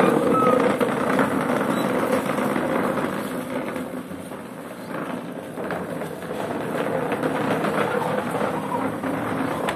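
Plastic chair legs scraping and grinding across a concrete floor as the chair is pushed along, a rough continuous rasp that cuts off suddenly at the end.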